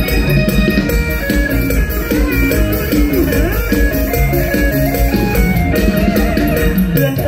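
Live mor lam band playing a loud instrumental passage through the PA: a moving plucked-string melody over a steady drum-kit beat.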